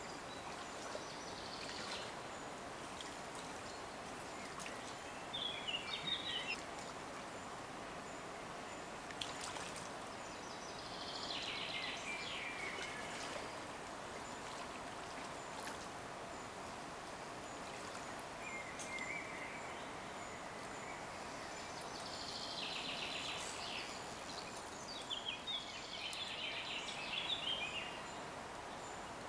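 Steady rush of a flowing river, with birds singing short, chirpy phrases several times over it.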